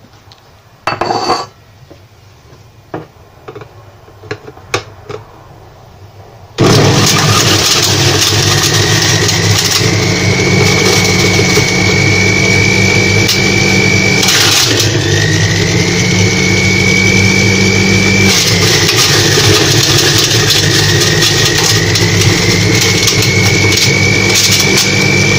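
Mehtap centrifugal juicer's motor switching on about six and a half seconds in and running loud and steady with a high whine while juicing grapes. Twice the whine dips in pitch and climbs back. A few light clicks and knocks come before it starts.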